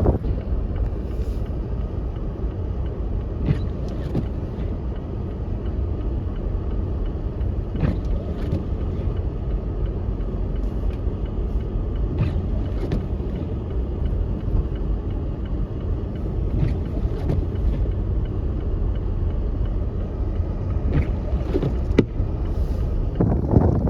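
Car driving through heavy snow: a steady low rumble of road and engine noise, with a few faint clicks scattered through it.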